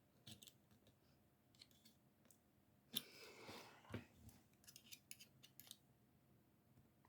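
Faint clicks and a short scraping rub of pliers working small metal battery contacts into a plastic radio case. The scrape comes about three seconds in, a sharper click follows, then a run of small clicks.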